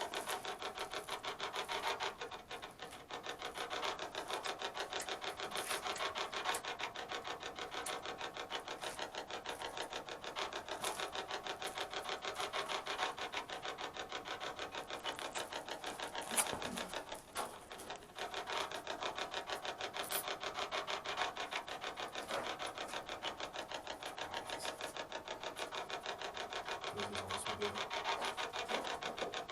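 A fast, even pulsing noise, like a small machine running, with a few sharp clicks; it dips briefly about halfway through.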